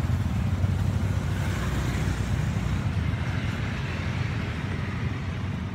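A steady low rumble with a fainter hiss above it and no distinct events.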